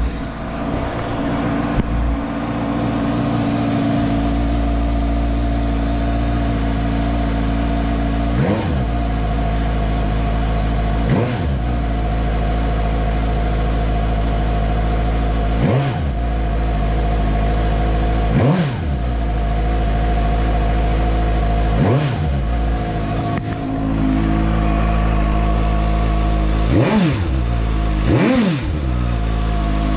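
The 2018 Suzuki GSX-S750's inline-four engine idles steadily in neutral through its stock exhaust. The throttle is blipped about seven times, each a quick rise and fall in pitch, with the last two close together near the end.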